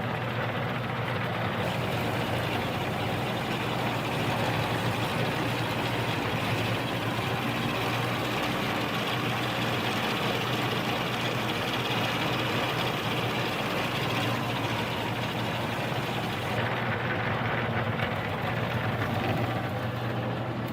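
Geared-down Delta drill press running steadily in low gear at its slowest speed: motor, belt-and-pulley drive and head gears giving an even hum.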